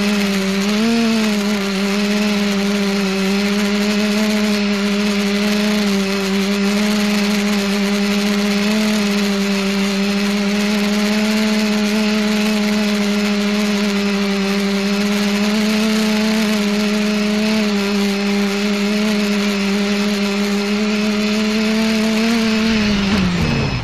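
Electric motors and propellers of the ETFD2 flying-disc multicopter, heard from its onboard camera: a steady buzzing hum with slight wavers in pitch. Near the end the pitch falls away sharply as the motors spool down on landing.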